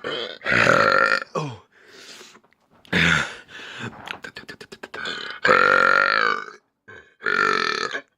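A man belching repeatedly: several loud, drawn-out burps, the longest about five to six and a half seconds in, with a rapid run of small clicks between them about four seconds in.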